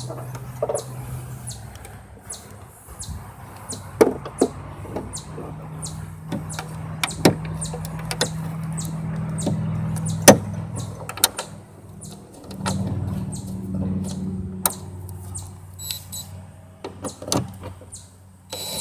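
Power drill driving a hood bolt, its motor running at low speed in two long spells, with sharp metallic clicks and clinks throughout.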